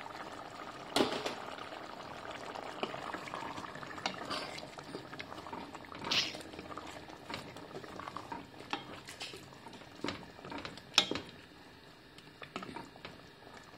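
Chicken stew with cream simmering in a stainless steel pot, bubbling with irregular soft pops and a few sharper knocks. A wooden spoon stirs it near the end.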